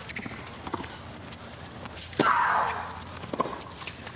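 Tennis rally: the ball cracks off the rackets about every second and a half. About two seconds in, a stroke comes with a loud, breathy grunt from the player.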